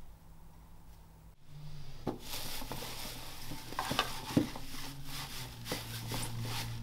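Hands rustling and scooping loose wood shavings over wooden plates in a plastic crate, starting about two seconds in, with a few light knocks among the rustle.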